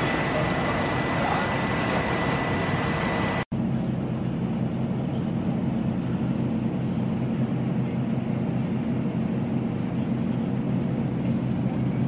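Steady rumble and hiss of a ship under way, with a faint high whistle. About three and a half seconds in it drops out for an instant, and a lower, steady engine hum takes over.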